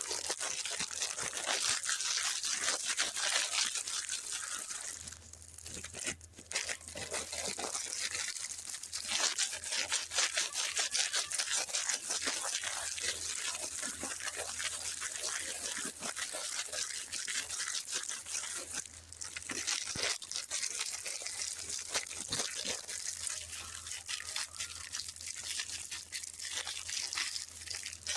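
Plastic sweet packaging crinkling and rustling, with many small crackles and clicks, as wrappers are handled and opened.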